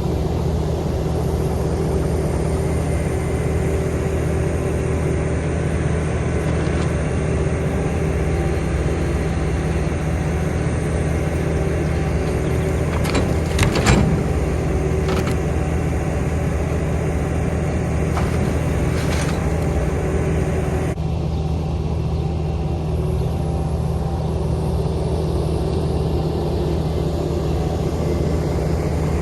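Vehicle engine running steadily while driving, a constant low drone, with a few short knocks or rattles about fourteen seconds in.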